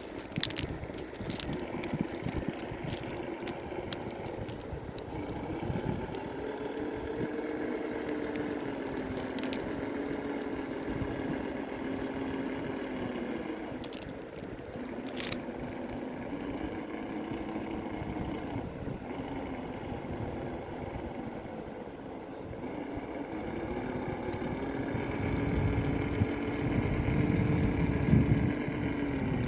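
Electric motor and gear whine of a 1/10-scale FTX Mauler RC crawler, rising and falling in pitch in repeated swells as the throttle is worked, with scattered clicks and scrapes. It grows louder near the end, with a low rumble.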